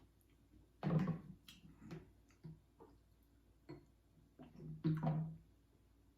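Close-miked eating sounds: chewing and mouth noises of someone eating pancakes, with scattered small clicks and taps. There are two louder bursts, about a second in and about five seconds in.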